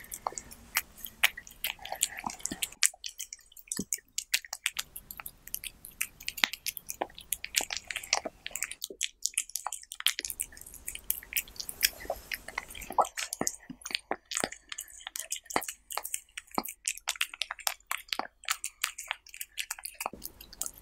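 A cat eating a taco of tortilla and diced vegetables: close, wet chewing and licking with rapid irregular mouth clicks, thinning briefly twice.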